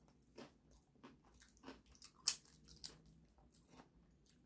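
Faint close-up chewing of food, with small crunches and mouth clicks scattered throughout; one sharper click a little over two seconds in.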